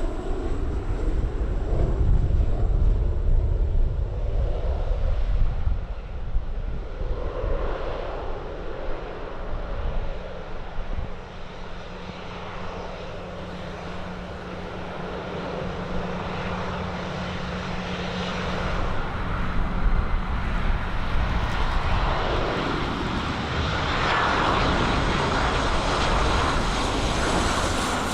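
Aircraft engine noise, loudest with a deep rumble in the first few seconds, dipping near the middle and building again toward the end.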